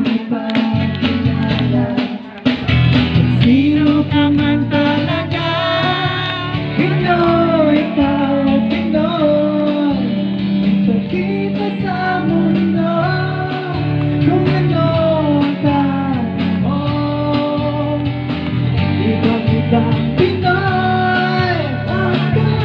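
A song playing: a singing voice carrying a melody of long, bending notes over a steady accompaniment.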